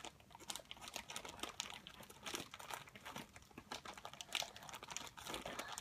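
Packaging being crinkled and torn as it is worked open by hand: a run of irregular crackles and rustles.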